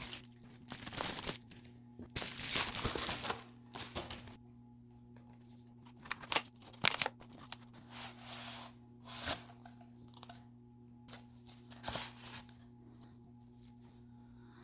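Packaging of a leather wallet phone case being handled and opened: crinkling and tearing in irregular bursts, the longest about two seconds in, with a few sharp clicks and taps around six to seven seconds in. A faint steady low hum runs underneath.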